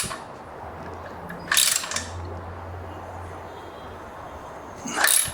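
Hand ratchet wrench clicking in short strokes, three brief bursts, as a slider bolt's lock nut is tightened down.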